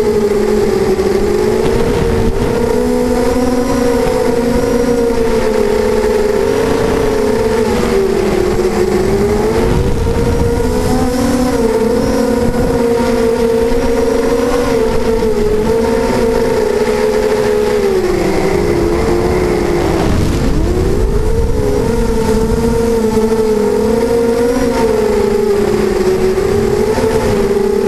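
FPV racing quadcopter's brushless motors and propellers whining as heard from the onboard camera, the pitch wavering up and down with the throttle, dropping sharply about twenty seconds in and climbing back. Wind rushes on the microphone underneath.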